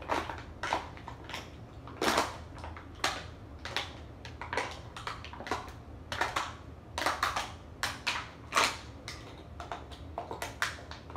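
Close-up eating and drinking noises: irregular crunching and sharp clicks, with a small plastic bottle being uncapped, drunk from and handled.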